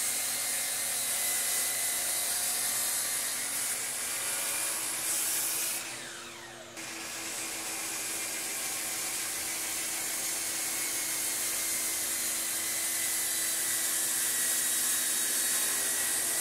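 DeWalt 12-inch sliding miter saw running and crosscutting a 2x8 board, over the steady hiss of a shop vac drawing on its dust port. About six seconds in, the saw's motor winds down with a falling whine and is switched straight back on.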